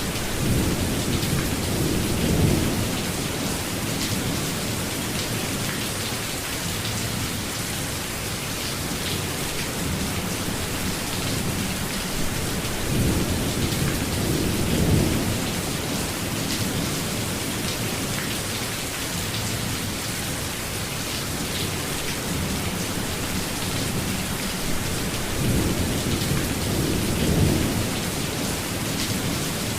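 Steady rainfall with three low rumbles of thunder that swell and fade: near the start, about halfway through, and near the end.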